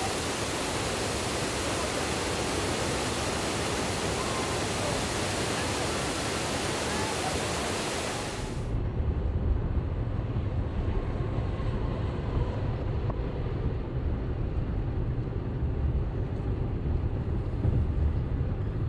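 A steady, even rushing hiss for the first eight or nine seconds that cuts off abruptly. It gives way to the low, steady road rumble of a car's interior while driving on the motorway.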